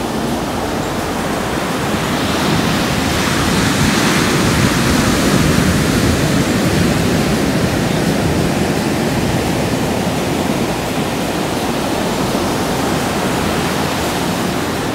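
Ocean surf breaking and washing up the beach in a continuous rush, swelling louder about four to six seconds in.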